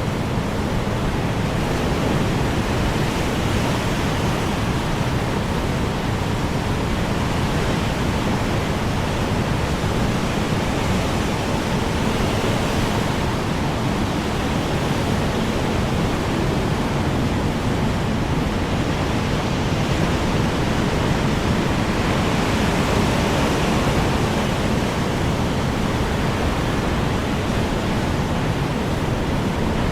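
Strong wind blowing: a steady, dense rush of noise that swells a little now and then in gusts.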